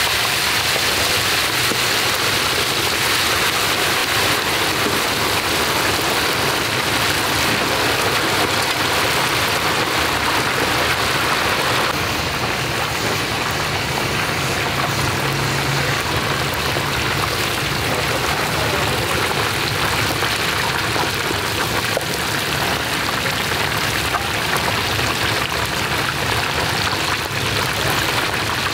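Small fish deep-frying in a large wok of hot oil: a loud, steady sizzle, easing slightly about halfway through.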